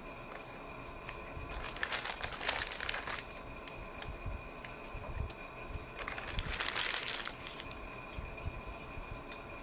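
Sandwich wrapper paper crinkling, in two bursts of about a second and a half each.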